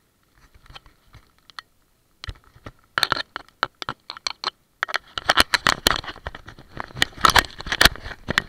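Rain pattering close to the microphone, heard as irregular sharp taps and crackles of drops striking the camera housing and the kayak. It is sparse at first and turns dense from about five seconds in.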